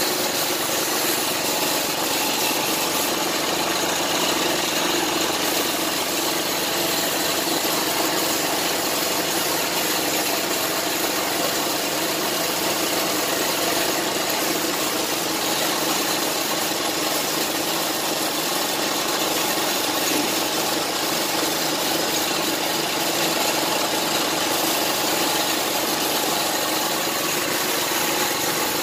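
An air compressor runs steadily alongside the hiss of a gravity-feed spray gun spraying paint onto a motorcycle frame.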